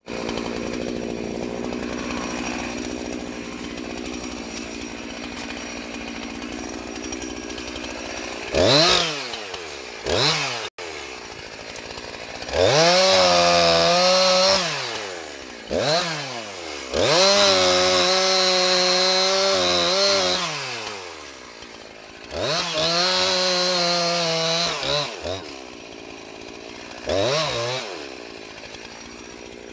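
Two-stroke chainsaw idling, then revved in short blips and run at full throttle in several cuts of two to four seconds each as it saws into the base of a small tree, dropping back to idle between cuts.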